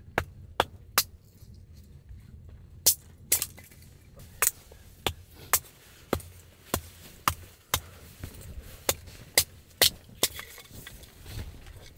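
Hatchet chopping into firewood to split kindling: a run of sharp knocks about two a second, with a pause of about a second and a half near the start.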